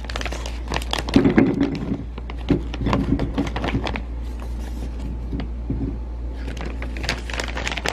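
Korean rice cake sticks (tteok) tipped into a glass bowl: a busy run of knocks and clicks against the glass, heaviest in the first few seconds, with more near the end, over a steady low hum.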